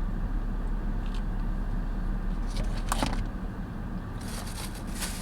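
Steady low engine rumble heard inside a car, with a short tap about three seconds in and a crisp rustling starting near the end.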